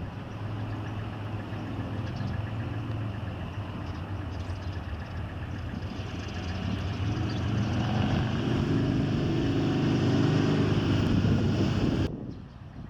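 Motor vehicle engine running, a steady low hum that grows louder over several seconds and then cuts off suddenly about twelve seconds in.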